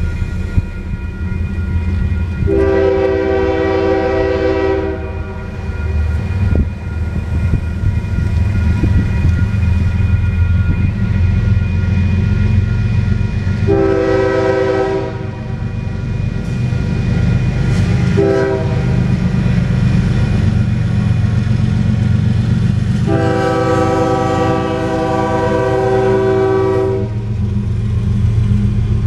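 Locomotive air horn of Union Pacific 5474, a GE AC45CCTE (ES44AC), sounding the grade-crossing signal: two long blasts, a short one and a final long blast, over a steady low rumble of the approaching train. A crossing warning bell rings steadily until about halfway through.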